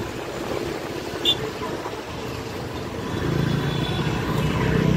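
Motor scooter riding through busy town traffic: steady engine and road noise, with a brief high chirp about a second in and the engine hum growing louder from about three seconds in.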